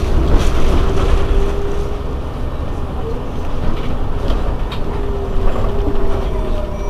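Heuliez GX 327 city bus idling at a stop, its engine a steady low rumble. A steady whine runs over it, fading out about two seconds in and returning near the end.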